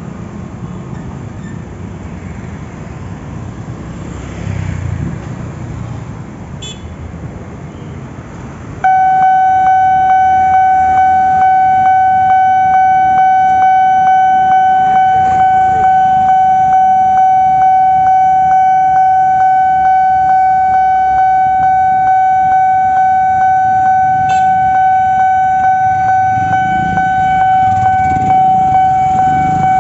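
Road traffic with vehicle engines, then about nine seconds in a railway level-crossing warning alarm switches on: a loud, steady high tone that pulses regularly, signalling an approaching train.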